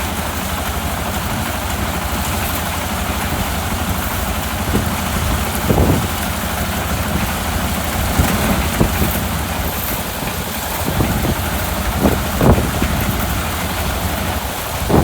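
Engine of a small rice-harvesting machine running steadily, with a constant hiss over it and a few short louder swells about six seconds and twelve seconds in and again near the end.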